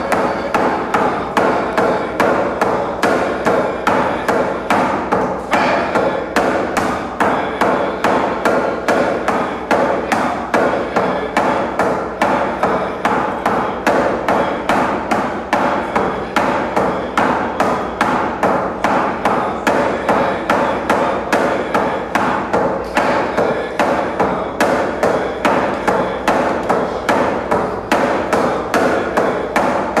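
Rawhide hand drum struck with a beater in a steady, even beat.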